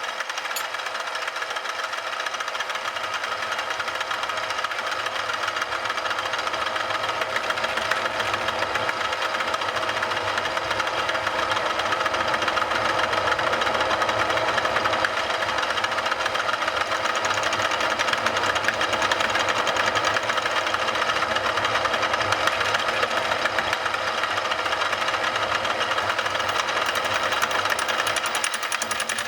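Milling machine running and cutting across the flat face of a Ural motorcycle's engine front cover: a steady, loud machining sound with a fast, fine chatter.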